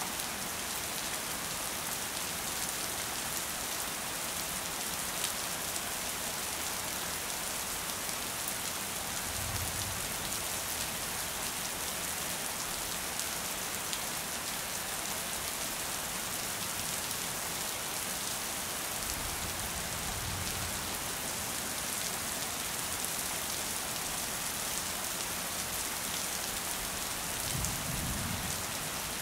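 Steady rain falling on a hard surface, an even hiss throughout. Three brief low rumbles come through it: about a third of the way in, around two thirds of the way in, and near the end.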